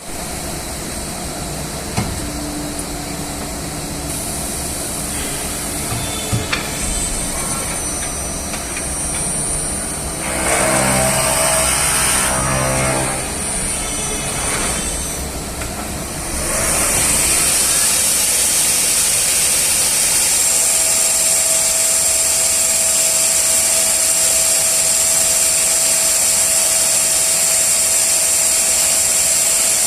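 Intorex TMC 3000 DB five-axis wood CNC machining centre running, with a few short knocks early on. More than halfway through, a loud, steady, high-pitched spindle whine sets in and holds.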